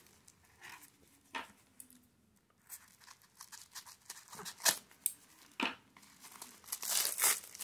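Tissue paper crinkling and tearing as a wrapped box is turned over and unwrapped: a series of short rustles and rips, busiest near the end.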